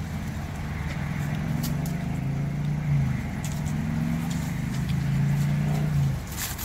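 Low droning motor hum with several steady, slightly wavering pitches, swelling about a second and a half in and falling away near the end, over a constant low rumble, with a few faint clicks.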